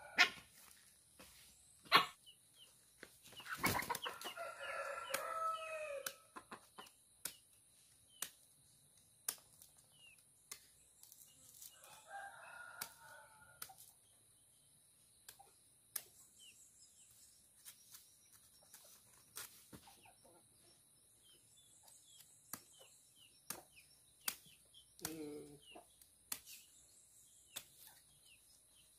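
Sharp knocks of a machete chopping banana hands off the bunch stalk, coming at irregular intervals. A rooster crows once about four seconds in, and chickens cluck around the middle and near the end.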